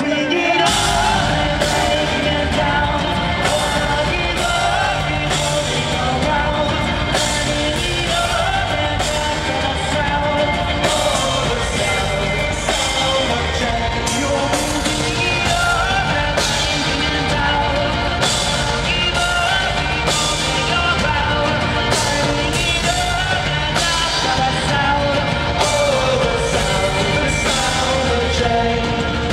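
Live rock band playing loudly through a large arena PA: drums and bass under a sung, wavering melodic vocal line.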